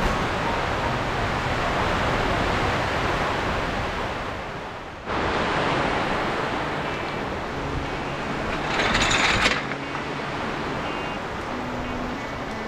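Typhoon wind and rain: a steady rushing noise that fades, then returns abruptly about five seconds in, with a brief louder hiss about nine seconds in.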